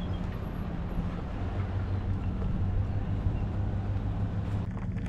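A truck engine running steadily at idle, a constant low hum.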